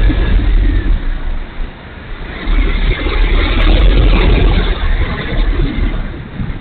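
Wind rushing and buffeting over a camera microphone on a small electric RC model plane's wing, loud and gusting. It eases off about two seconds in and again near the end.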